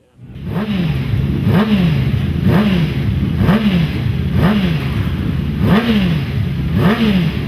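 Racing motorcycle engine revved in short throttle blips about once a second over a steady idle; each blip jumps up in pitch and falls back.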